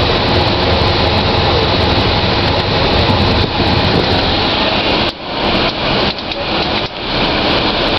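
Steady, loud road and engine noise heard from inside a moving bus, dropping sharply a few times between about five and seven seconds in.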